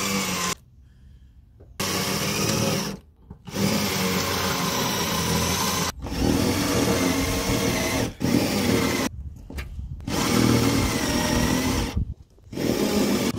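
Red cordless drill boring a twist bit into a painted metal panel. The motor runs with a wavering whine in bursts of one to two and a half seconds, stopping briefly about six times as the trigger is let off and taken up again.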